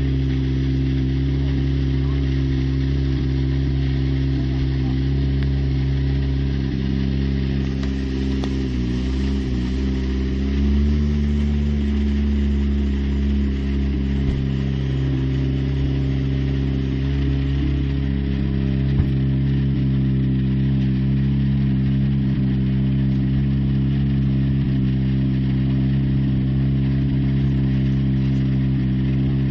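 Rally car engine idling steadily while the car stands still, its note wavering briefly about a third of the way through.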